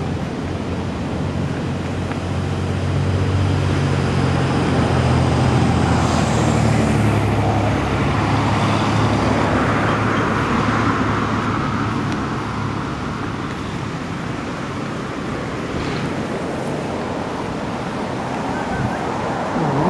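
Road traffic noise, with a motor vehicle's engine growing louder and passing between about two and eight seconds in, then settling back to a steady hum.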